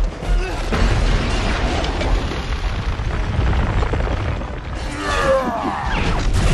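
Film action sound mix of large-scale destruction: a heavy, continuous rumble of breaking rock and debris with booms. About five seconds in comes a burst of sweeping high tones, rising and falling, as an impact bursts against a truck.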